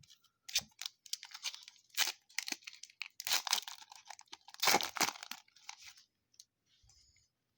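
A foil trading-card pack wrapper being torn open and crinkled: a run of rips and crackles, loudest about two, three and a half and five seconds in, that stops about six seconds in.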